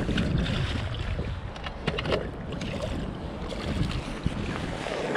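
Wind buffeting the microphone, with irregular splashing as a walleye thrashes in a landing net and is scooped out of the river.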